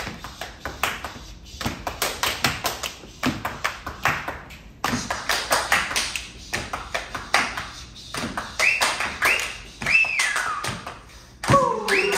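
A group clapping hands and tapping in rhythm as body percussion in a vocal improvisation. High sliding vocal sounds rise and fall a couple of times late on, and near the end several voices come in together with gliding pitches.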